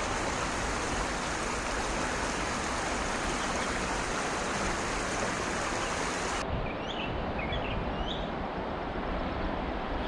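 Shallow river water rushing over stones in a steady, even wash. About six and a half seconds in it changes abruptly to a softer flow, with a few quick bird chirps.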